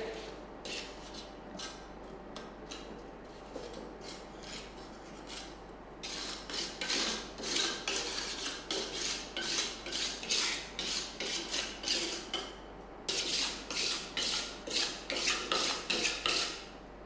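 Steel trowel scraping and smoothing mortar into the frog of a clay brick, levelling it flush. The strokes are light and scattered at first, then from about six seconds in come quick, louder repeated scrapes, with a brief pause about two-thirds of the way through.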